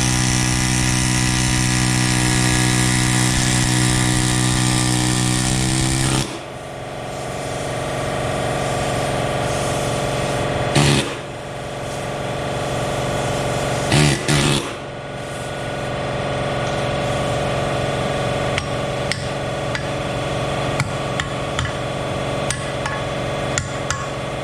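Air ratchet running steadily for about six seconds and then cutting off, followed by two short bursts a few seconds apart. After that come many light clicks and clinks of tools and metal parts.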